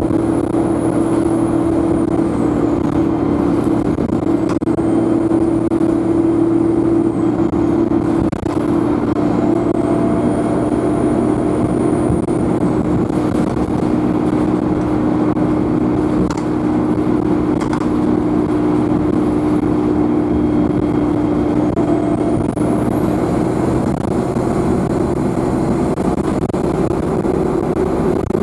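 Euro 5 Alexander Dennis Enviro200 bus engine running under way with a steady drone, its turbocharger whining high above it, the whine rising and falling several times as the throttle opens and closes and holding longest and highest near the end.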